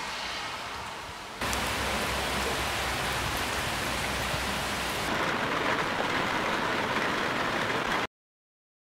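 Steady rain falling, heard in three takes. About a second and a half in it becomes louder and fuller, and about five seconds in its tone changes. It cuts off abruptly to silence near the end.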